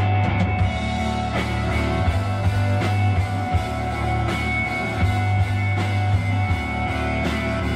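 Live rock band playing a psychedelic rock song: electric guitar over drums, with long held low notes underneath.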